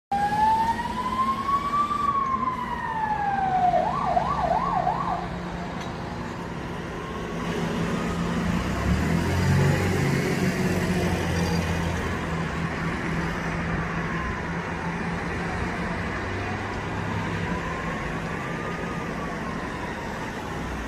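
Emergency vehicle sirens: a loud slow wail rising and falling, switching briefly to a fast yelp about four seconds in, then a fainter siren wailing up and down every few seconds. A low rumble swells through the middle.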